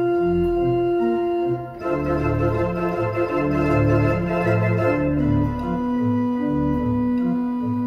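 Pipe organ playing a chirpy, jazz-tinged melody over an ostinato bass line in the pedals, the bass notes changing about twice a second. Just before two seconds in the sound briefly drops, then resumes with a fuller, brighter registration.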